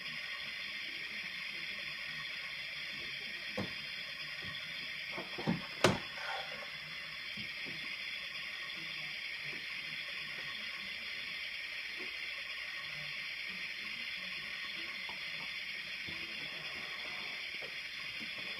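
Light knocks and clatter of hard plastic toy-kitchen pieces being handled, with one sharp knock about six seconds in, over a steady hiss.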